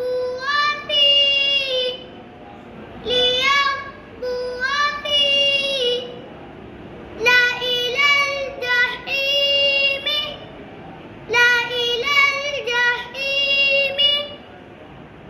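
A young boy's high-pitched voice reciting Arabic letters and syllables from the Noorani Qaida in a melodic, sing-song chant, in four runs of short phrases with brief pauses between.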